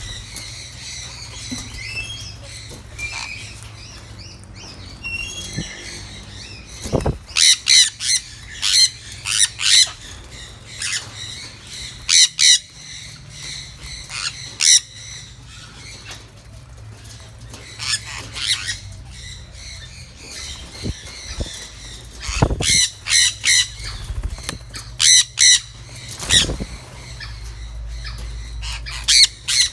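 Sun conures squawking: loud, shrill calls that come in clusters of quick repeats, with softer chirps between the clusters.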